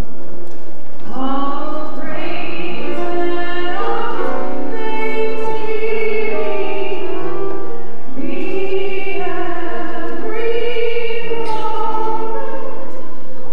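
Church choir singing a communion hymn in long, held phrases.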